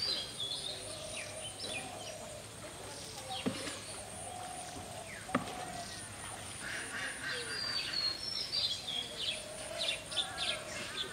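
Birds chirping and calling, many short high chirps and curved calls overlapping, with two sharp knocks about three and a half and five seconds in.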